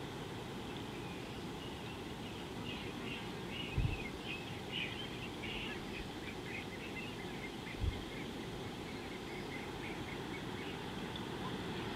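A bird calling in a quick run of short chirps over a steady outdoor hiss, busiest a few seconds in. There are two brief low thumps, about four seconds in and again near eight seconds.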